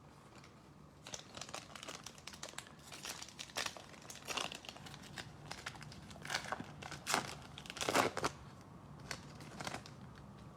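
Faint, irregular crinkling and rustling of a trading-card pack wrapper being torn open and handled, starting about a second in.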